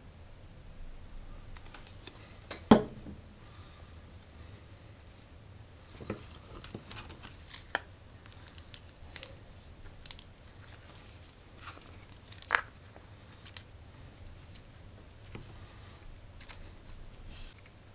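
Scattered small clicks, taps and rustles of hands handling a small woofer speaker and a PVC elbow pipe while gluing the speaker into it, with one sharp knock a few seconds in.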